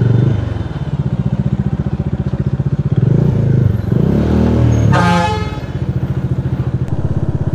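Motorcycle engine running as the bike pulls away and rides on, its pitch rising and falling with the throttle. A vehicle horn sounds briefly about five seconds in, dropping slightly in pitch.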